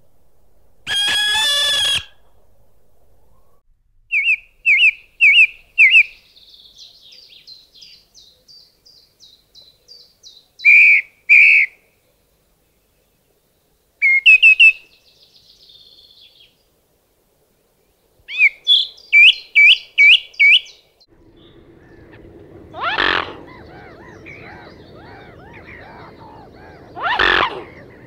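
Song thrush singing: loud, clear whistled notes given in short phrases, each repeated two to five times, with quieter high twittering in between. A single one-second call comes about a second in, and near the end two louder calls rise over a steady rustling background.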